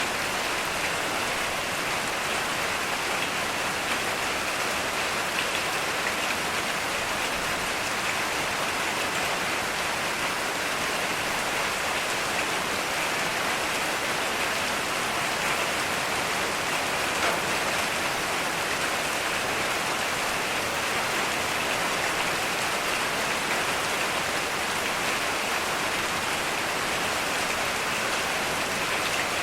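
Heavy rain falling steadily, an even hiss of many raindrops.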